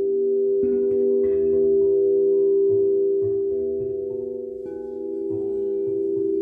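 Crystal singing bowls ringing together in long, steady tones, several notes at once. Soft mallet strikes add fresh notes every second or so.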